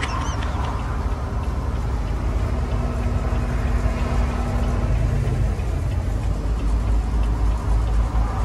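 Semi truck's diesel engine running steadily as the loaded truck descends a mountain grade, heard from inside the cab. It is a continuous low drone, with a faint steady tone that fades out about five seconds in.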